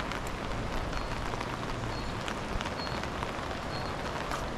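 Steady rushing noise of water, with a few short high chirps in the second half.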